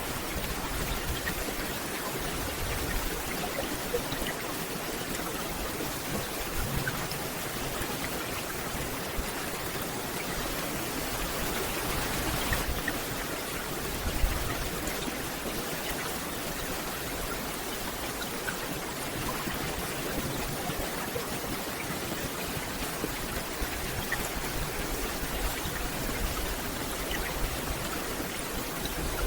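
Steady rain falling through a forest canopy, an even hiss scattered with small drop ticks.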